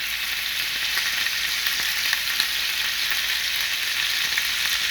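Pieces of pork rib searing in hot olive oil in a skillet on high heat: a steady, loud sizzle with small crackles and pops.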